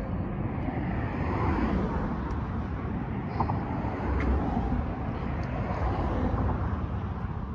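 Road traffic going by: a steady rush of car noise.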